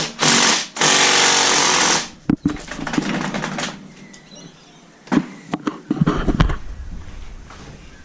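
Impact wrench hammering in two bursts, a short one and then one lasting over a second, followed by a few sharp metallic knocks and tool clatter. The wrench is working a sprocket nut while the rear brake is held to stop the wheel turning.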